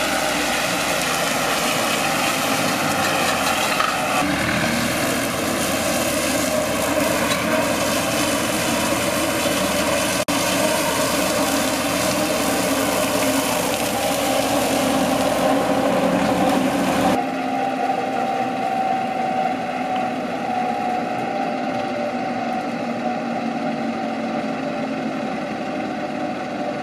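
Zetor 7711 tractor's four-cylinder diesel engine running steadily, with its rear-mounted drum mower cutting grass. About two-thirds of the way through the sound turns abruptly duller, with less hiss.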